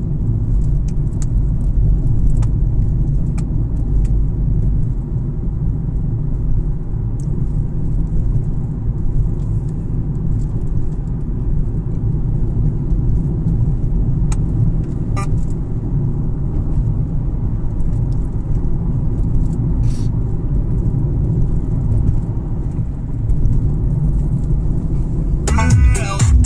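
Steady low rumble of a Kia cee'd heard inside the cabin, with faint steady hums under it and a few light clicks. Near the end comes a short burst of pitched, voice-like sound.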